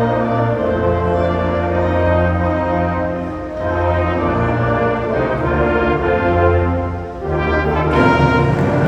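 A band with brass plays music in long, held chords that change about every second. It swells into a louder, fuller entry near the end.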